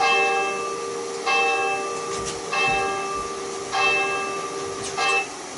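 A large bell tolling slowly: five strikes about a second and a quarter apart, each ringing on into the next over a steady hum. It is a memorial toll, and it cuts off abruptly after the fifth strike near the end.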